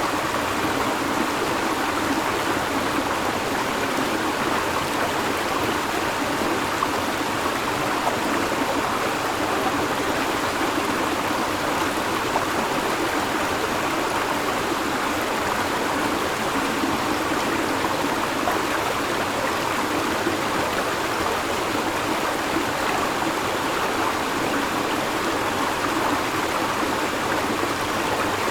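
River water flowing steadily, an even babbling rush with no break or change.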